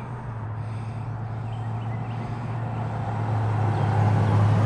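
A vehicle engine runs with a steady low hum over road and wind noise, growing louder toward the end.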